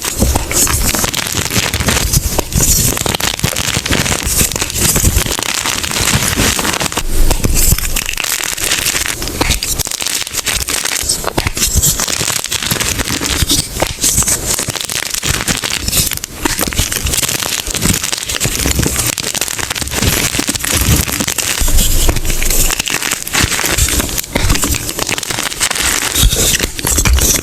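Blocks of gym chalk being crushed by hand: a dense, continuous crunching and crackling made of many small sharp snaps, with no pauses.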